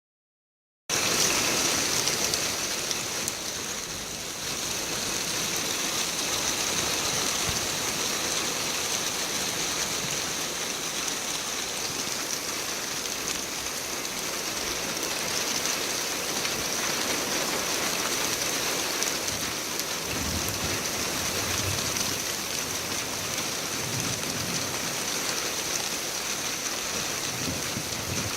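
Steady rain falling during a thunderstorm, with a low rumble of thunder twice in the second half.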